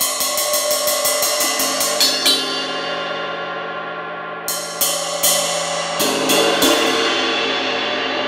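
Cracked 22-inch Zildjian A Custom ride cymbal, a chunk broken out of its edge, played with a wooden drumstick: a quick run of ride strokes, about six a second for the first two seconds, then two short groups of hits about halfway through and again a little later. The cymbal's wash rings between the strokes and slowly fades near the end.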